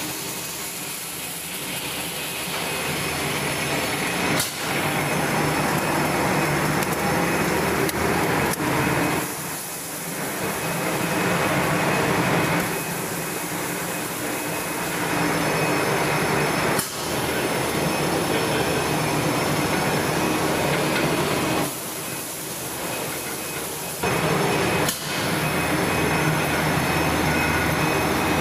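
Machinery of a commercial popcorn production line running: a steady mechanical din with a low hum. The sound changes abruptly several times.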